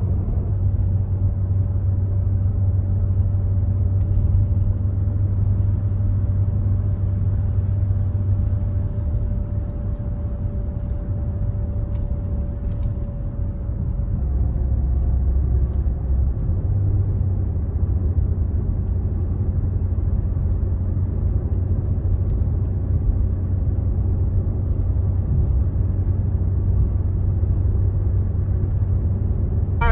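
Steady engine and road rumble heard from inside a car cabin while driving along a road, with a faint hum that shifts slightly about halfway through.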